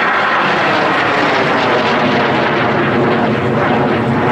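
Lockheed T-33 Shooting Star jet, with its Rolls-Royce Nene 10 centrifugal turbojet, flying past in a display: a loud, steady jet rush that deepens in pitch toward the end.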